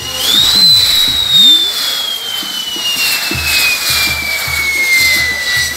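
Fireworks castle burning: a steady hiss of burning lances and spark fountains, with one loud pyrotechnic whistle that rises briefly near the start, then slowly falls in pitch.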